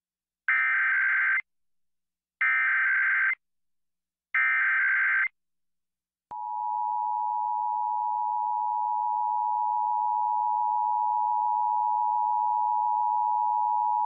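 Emergency Alert System monthly test: three short bursts of harsh SAME digital header data, about a second each and two seconds apart, then the steady two-tone EAS attention signal (853 and 960 Hz), starting about six seconds in and holding to the end.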